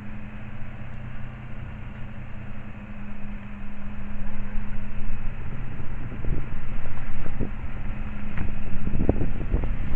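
Car engine running as a car drives up and pulls in close, growing louder over the second half, over a steady low hum.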